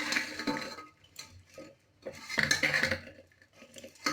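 Metal spoon scraping and clattering against the inside of a metal pressure cooker, in two bursts, as caramel-coated popcorn is stirred and scooped.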